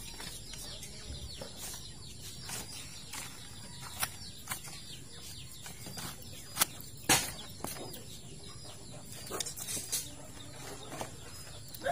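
Faint bird chirps and chicken clucks in the background, with a few short sharp clicks scattered through, the loudest a little after the middle.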